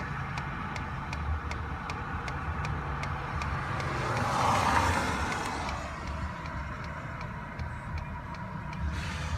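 Ford F-150 engine idling with a rapid, regular clicking of about two to three ticks a second: the weird noise that comes with the truck's electrical fault. A hiss swells and fades around the middle.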